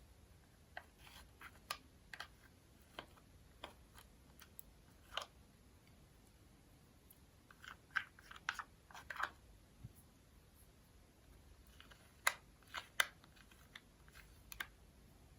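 Slime being pressed and worked by hand, giving irregular sharp crackles and pops, some single and some in quick clusters.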